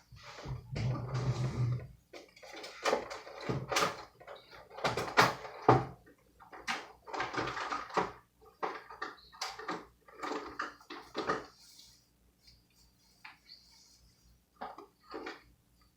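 Kitchen handling sounds: a run of irregular knocks and clatters, like dishes, utensils and cupboards being handled, dying down to a few faint knocks near the end.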